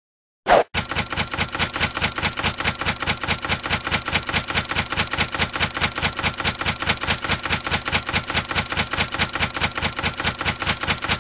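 Typewriter-key typing sound effect for text typing itself out on screen: a rapid, even run of sharp clicks, several a second, after one short loud hit about half a second in.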